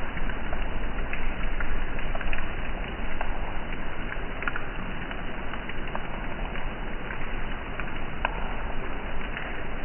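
Steady rain falling, an even hiss with scattered single drop ticks standing out here and there, over a low steady rumble.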